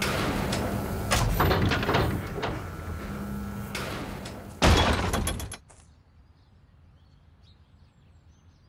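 Cartoon sound effects of a robot crane grab hoisting a dinosaur skull: a motor hum with rattling and scraping, then a heavy thud about four and a half seconds in, after which the sound falls away to a faint background.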